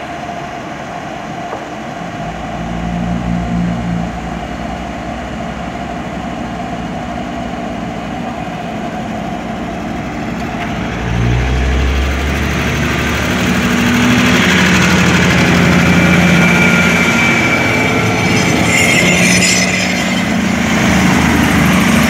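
Diesel engines of an SRT Daewoo diesel railcar running as the train pulls away from the platform. The engine note gets louder and deeper about eleven seconds in as it opens up, and the sound grows louder still as the power car and carriages pass close by.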